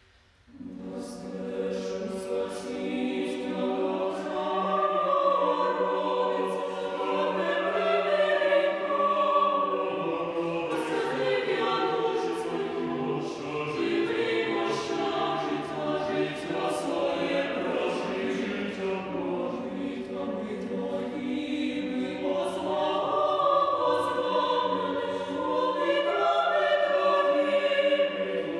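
Mixed chamber choir singing a cappella in sustained, shifting chords. It comes in just after a brief silence at the start and swells over the first several seconds.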